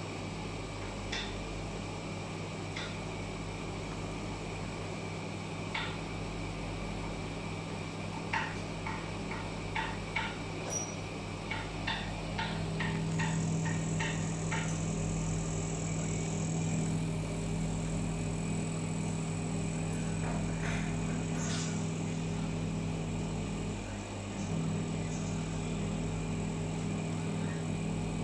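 Steady electric hum of a laser welder's water-chiller pump running while the fill button is held to fill its water tank, louder from about halfway through, with a brief dip near the end. A few light clicks sound in the middle.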